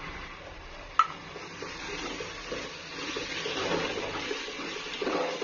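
A single sharp knock on the aluminium pot about a second in. Then a spoon stirs a thick tomato-onion masala with freshly added spice powders as it sizzles, the stirring growing louder over the last two seconds or so.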